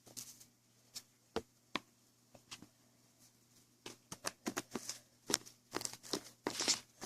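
Small clicks, taps and rustles of things being handled, a few at a time at first, then coming thick and fast about four seconds in.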